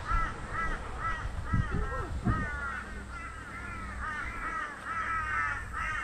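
A bird calling over and over in short, arched calls, about two or three a second, which turn into a run of longer falling calls in the second half.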